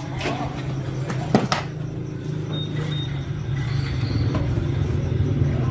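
A steady low machine hum that grows gradually louder, with a few sharp clicks in the first second and a half and two short high beeps near the middle.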